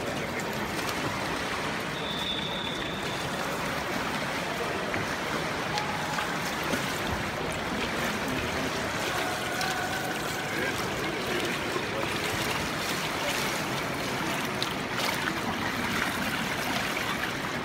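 Steady wash of pool water lapping and trickling at the edge of an indoor swimming pool.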